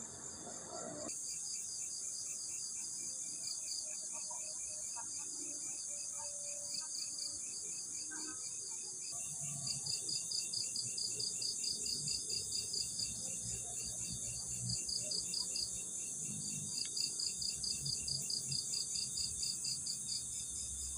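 Crickets chirping in rapid, evenly repeated pulses over a steady high-pitched insect hum, the chirping growing louder and more distinct about nine seconds in.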